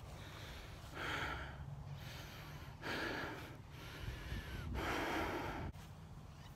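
A person breathing heavily, with a loud breath about every two seconds, over a steady low rumble.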